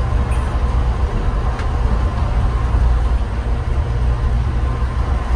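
Scania K410IB coach on the move: a steady low rumble of engine and road noise.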